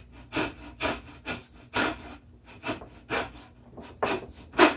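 Hand-tool strokes rasping back and forth as material is cut away, about two a second, with the loudest stroke near the end.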